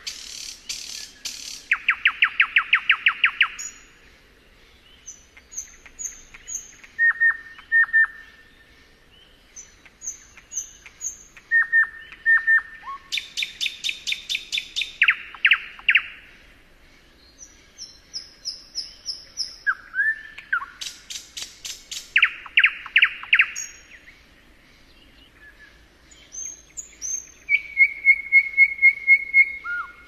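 Nightingale singing in separate phrases with short pauses between. Fast series of loud, rapidly repeated notes and rattles alternate with sets of high, pure whistled notes.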